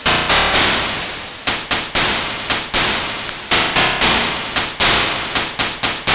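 A rapid, uneven string of loud blast sound effects, well over a dozen, each hitting suddenly and fading away within a second.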